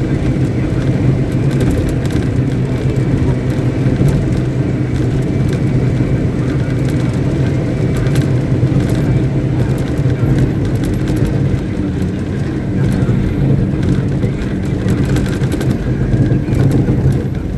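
Caterpillar 777D haul truck's Cat 3508B V8 diesel engine running steadily at a constant speed on a stationary ground test, with no revving.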